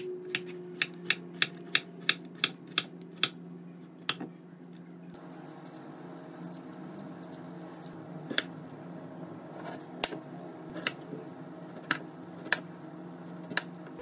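Chef's knife chopping vegetables on a wooden cutting board: a quick run of about ten chops, then six slower single cuts through a carrot, roughly one a second. A steady low hum runs underneath.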